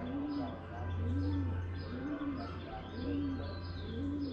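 A dove cooing over and over, a low rise-and-fall call about once a second, while small birds chirp higher up. A low steady hum runs beneath.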